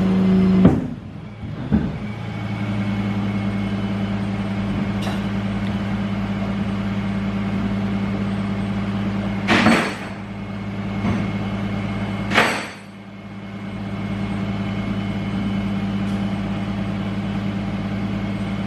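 A vehicle engine idling steadily, its hum dropping away briefly about a second in and again near thirteen seconds, with two short loud sounds at about ten and twelve and a half seconds.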